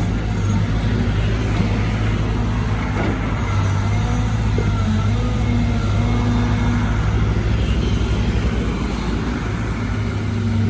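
Caterpillar 313GC hydraulic excavator's diesel engine running steadily as it works, a constant low hum with an even drone above it.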